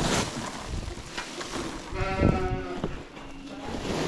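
A sheep bleating once, about two seconds in.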